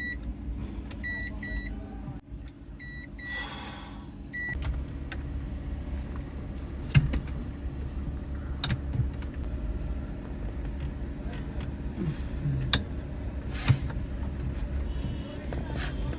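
A car engine idling with a steady low rumble. Several short, high electronic beeps sound in the first few seconds, and a few sharp clicks and knocks come later.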